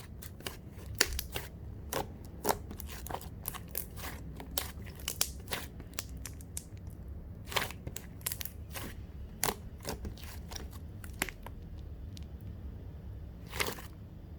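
Knife cutting an apple on a cutting board: a run of crisp cuts and knocks, close together for the first six seconds or so, then sparser, with a last one near the end.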